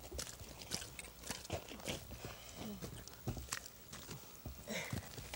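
Irregular wet crunching and squelching of walrus meat and hide being handled and cut with a knife.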